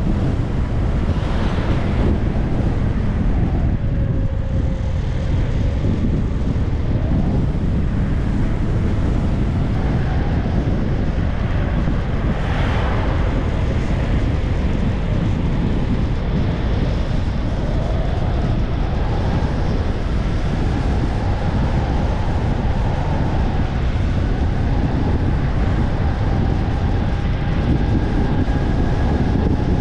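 Wind buffeting a microphone on a moving bicycle: a loud, steady low rumble. Faint whining tones drift up and down underneath.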